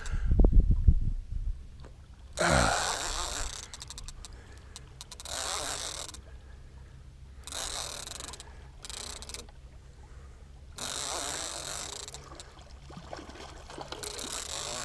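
Fishing reel being cranked in short spells of a second or so as a hooked catfish is worked toward the boat, with heavy thumps of handling in the first second.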